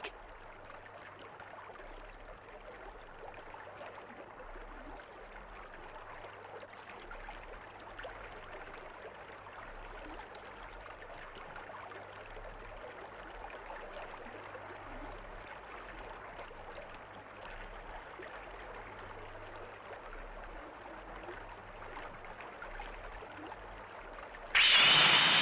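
Steady rush of flowing water, like a river or stream. About a second before the end, a sudden loud, ringing sound breaks in.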